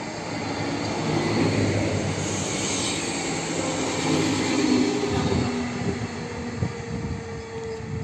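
SA134 diesel railcar pulling into the platform and passing close by, its diesel engine and wheels running over the rails. The noise grows louder over the first two seconds and stays strong as the cars go past.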